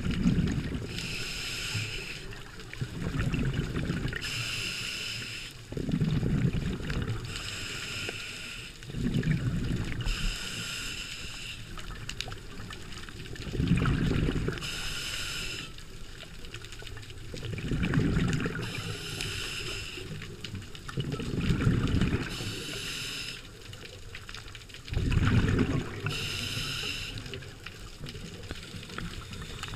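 Scuba diver's own breathing through a regulator, heard underwater through a camera housing. A hiss on each inhale alternates with a low rumble of exhaled bubbles, in a steady cycle about every four seconds.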